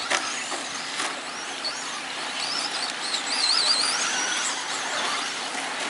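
Radio-controlled short-course trucks racing on a dirt track: a continuous rush of tyres and motors, with a high whine that rises and falls as the throttle changes. A couple of sharp knocks come at the start and about a second in.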